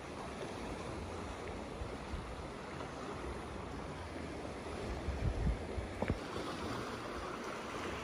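Sea surf washing steadily against a stony shore, with a few low bumps of wind on the microphone about five to six seconds in.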